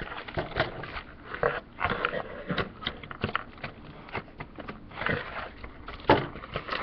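Toy packaging being pulled apart and handled: irregular crinkling, scraping and clicking of cardboard and plastic, with a sharper knock about six seconds in.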